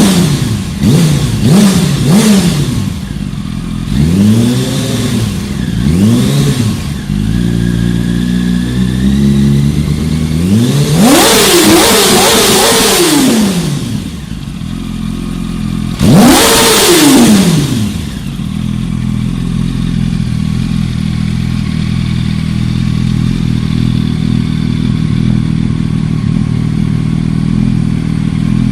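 2015 Yamaha R1 crossplane inline-four revved through its aftermarket exhaust: a run of quick throttle blips, two longer, higher revs about a third and halfway through, then a steady idle for the rest.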